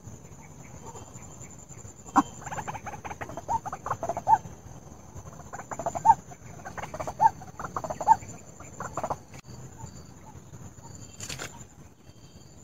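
White-breasted waterhen (ruak-ruak) calling in bursts of short, sharp, repeated notes, a recording used as a lure call to attract the bird. A steady high-pitched whine runs underneath, and there is a single click near the end.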